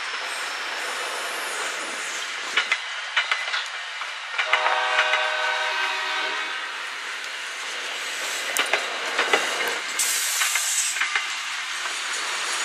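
MBTA commuter rail coaches rolling past at a grade crossing: steady wheel-on-rail noise with the clickety-clack of wheels over rail joints. A steady pitched tone sounds for about two seconds near the middle, and a brief hiss comes about ten seconds in.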